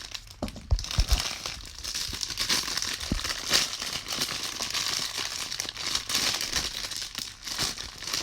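Plastic packaging crinkling and tearing as a fidget toy is unwrapped, with a few soft handling thumps near the start.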